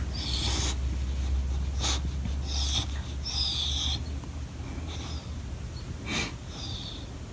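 English bulldog fussing with short, breathy, high-pitched noises, about six of them and mostly in the first four seconds. It is the crying a dog does when it wants attention and nobody is playing with it.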